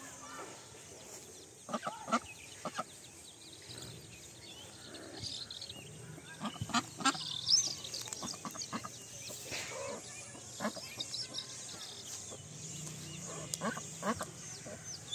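Domestic ducks giving short quacks in several separate clusters, loudest about halfway through, over high-pitched peeping from ducklings and chicks.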